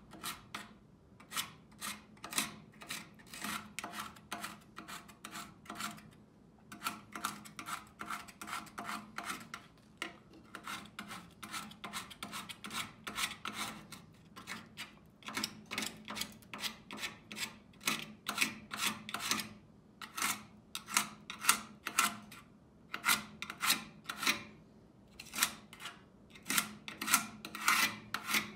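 A thin metal tool scraping packed grime out of the bottom channel of a steel tool chest, in quick rasping strokes, about two or three a second, in runs broken by brief pauses.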